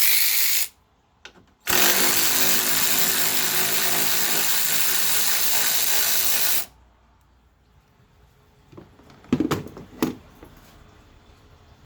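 Handheld power tool spinning a fastener out: one short run, then a longer run of about five seconds. A few sharp knocks follow near the end.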